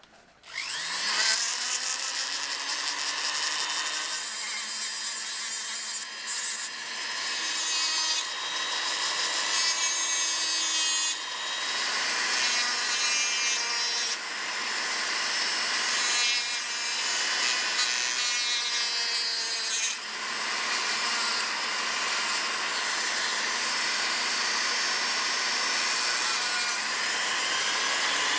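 A small electric power tool spins up about a second in, then runs steadily while abrading antler. The hiss of the cut changes and briefly eases off several times as the work is pressed to the tool and lifted.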